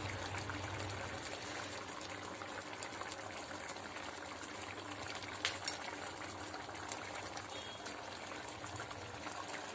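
Thick fish curry simmering in a pot: a soft, steady bubbling with a few faint pops.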